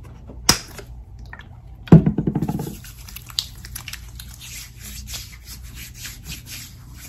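A click and then a knock with a short rattle as a lotion bottle is handled, followed by a run of faint quick rubbing strokes as lotion is rubbed into the skin.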